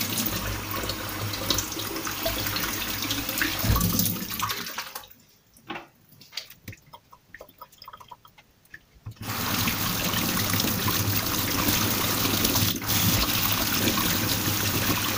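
Kitchen tap running in a steady stream over an aubergine being washed in a stainless-steel sink. The water shuts off about five seconds in for roughly four seconds, leaving only faint rubbing and handling sounds, then runs again for the rinse.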